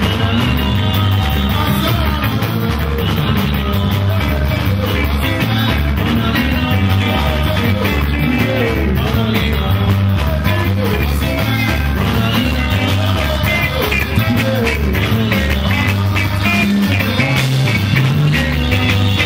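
Live band playing: electric guitars over a drum kit with a steady beat and a low bass line, and men singing into microphones.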